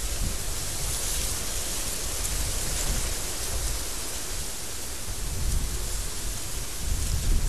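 Strong wind blowing steadily: a wide, even hiss over a fluctuating low rumble, with a stronger gust near the end.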